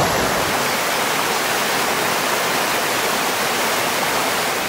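Small creek cascading over mossy boulders in several little falls, a steady rush of water.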